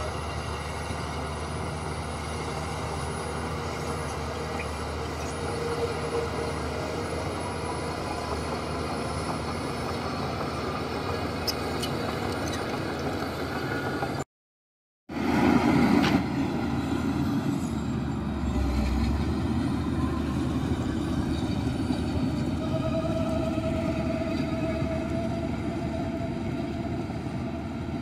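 Diesel engines of heavy earthmoving machinery, a dump truck and bulldozer, running steadily. The sound cuts out completely for under a second about halfway through and comes back somewhat louder.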